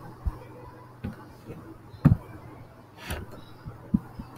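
Computer mouse clicks picked up by the recording microphone: about five short sharp clicks roughly a second apart, the loudest about two seconds in, over a steady low electrical hum.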